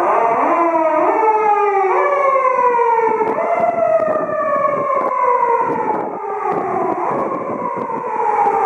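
Japanese police patrol car's siren wailing on an emergency run. Its pitch climbs in a few short steps, then sinks in a long slow fall over the second half.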